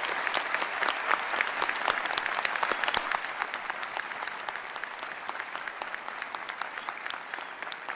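Audience applauding: a dense round of clapping that eases off somewhat in the second half.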